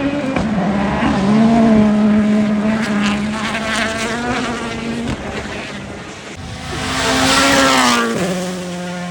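Rally car engine running hard on a stage, the revs dipping and climbing through gear changes, with a rush of tyre and stone noise swelling as the car passes closest about seven seconds in.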